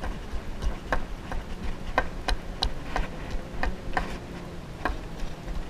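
A fist pounding raw clam meat on a weathered wooden railing to tenderize it for bait, a run of sharp, irregular knocks about two a second.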